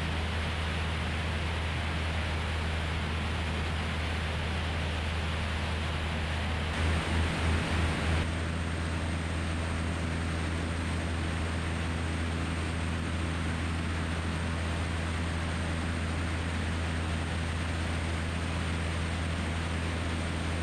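Cessna 172's engine and propeller droning steadily under loud wind rush over an outside-mounted camera. About seven seconds in, the wind buffets in four quick pulses.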